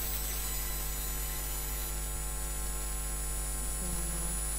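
Steady electrical hum with a constant hiss, the background noise of the recording setup, with no other distinct sound.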